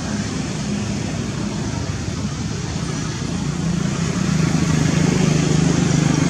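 A motor engine running steadily with a low, fast-fluttering hum that grows louder about four seconds in.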